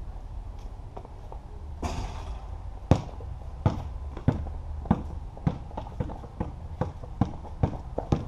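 Basketball dribbled on a concrete patio: a run of sharp bounces, about two a second, starting about three seconds in. A brief rush of noise comes just before the first bounce.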